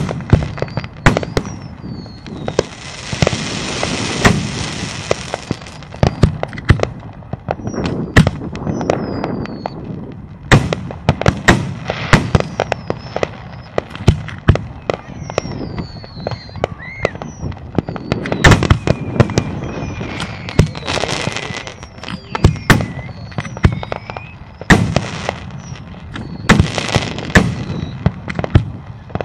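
Aerial fireworks shells bursting overhead: many sharp bangs and booms in irregular, rapid succession, with a few hissing stretches a couple of seconds long in between.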